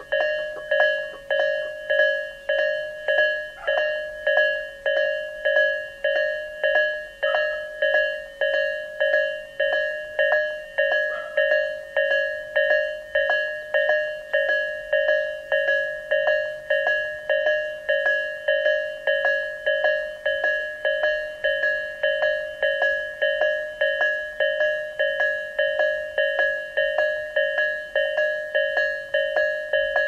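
Electronic level-crossing warning bell of the Tobu Isesaki Line type ringing steadily, a repeating bell-like ding at a little under two strikes a second. This is the slightly lower-pitched, slower version of the Isesaki crossing sound.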